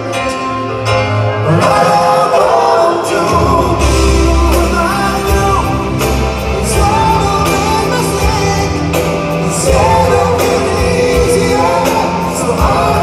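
Live rock band with a male lead singer, drums and a horn section, heard loud from the audience in a large hall. Heavier bass and drums come in about three and a half seconds in.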